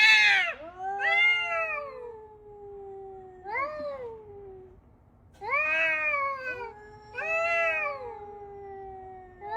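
Cats meowing and yowling: about five loud, drawn-out calls that rise and fall in pitch, with a second, lower, long call from another voice overlapping them.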